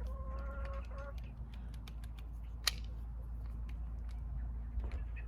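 Domestic fowl giving one held call of about a second at the start, followed by a single sharp click a couple of seconds later.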